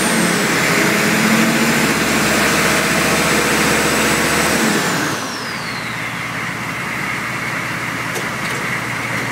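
GM 6.5-litre turbo-diesel V8 running at raised revs with a high turbo whistle, then dropping back to idle about five seconds in as the whistle glides down and fades. After that it idles steadily.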